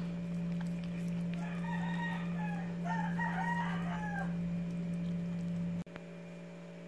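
A rooster crowing in the background, a drawn-out wavering call lasting about three seconds, over a steady low hum. The hum drops away abruptly near the end.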